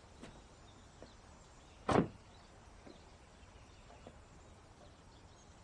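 A car door shut about two seconds in, a single solid thump, over faint outdoor ambience with a few soft clicks.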